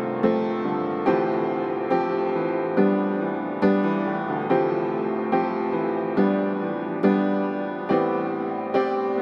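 Background music: a calm piano piece with a note or chord struck at an even pace, a little more than once a second.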